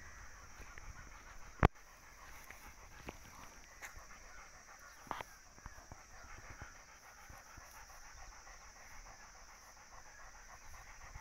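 A dog panting softly, with a single sharp click about a second and a half in and a few fainter ticks later.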